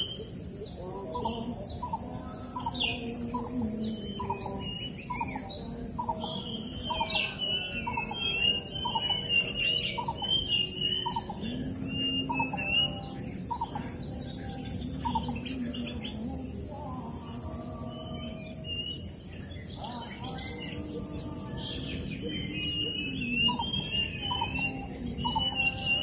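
Wild birds calling: a short note repeated a little over once a second for the first half or so, with high twittering chirps over a steady high-pitched drone.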